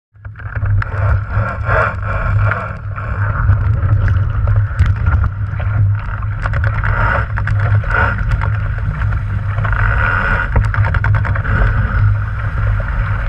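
Water rushing and splashing along the hull of a sailing dinghy moving fast through chop, with wind buffeting the microphone in a heavy low rumble.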